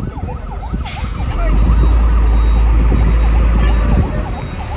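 A siren yelping fast, rising and falling about three times a second, over vehicle noise. A short hiss comes about a second in, and a heavy deep rumble swells up soon after and eases near the end.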